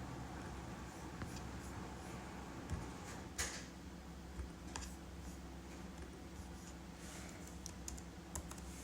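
Scattered, irregular clicks of a computer keyboard and mouse, the sharpest about three and a half seconds in, over a faint steady hum.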